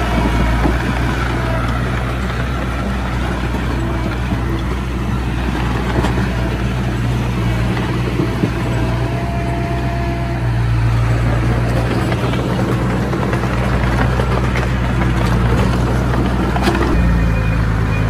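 Komatsu D20A bulldozer's diesel engine running steadily under load while pushing stone, with a few clanks. It gets a little louder about ten seconds in.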